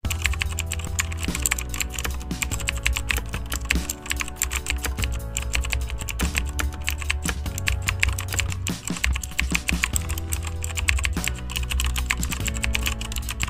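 Rapid computer-keyboard typing clicks, keeping pace with on-screen text being typed out, over background music with sustained low chords that change about every second.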